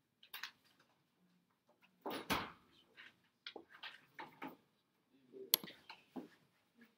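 Scattered small knocks and rustling handling noises in a quiet room, with one sharp click about five and a half seconds in.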